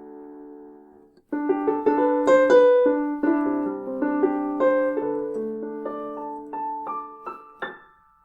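Roland GO:KEYS 61 keyboard playing a piano-like sound through its built-in speakers. A held chord dies away, and after a brief gap a melody over chords is played, ending on a note that fades out.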